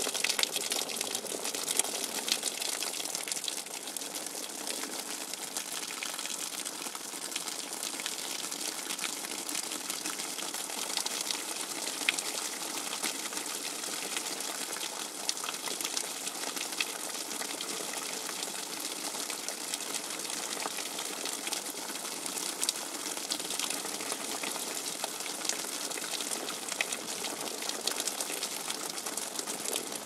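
Rain water dripping fast and hard: a steady dense patter of many drops over a hiss of falling water.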